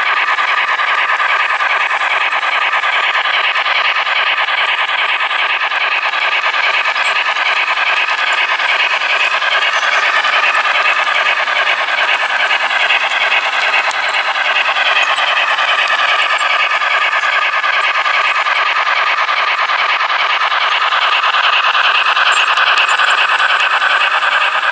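Die-cast MTH model of the Norfolk & Western Class J steam locomotive #611 running along the layout's track, a steady rolling rattle from its wheels and mechanism that grows a little louder near the end.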